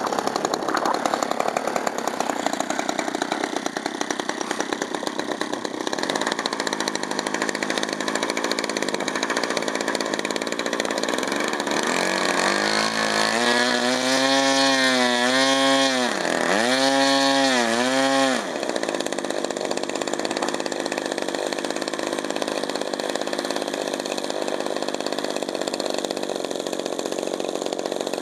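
Model airplane engine of a Sbach 342 RC aerobatic plane running on the ground with its propeller turning. About twelve seconds in it is run up to a higher pitch and held, dips once briefly and rises again, then drops back to idle at about eighteen seconds.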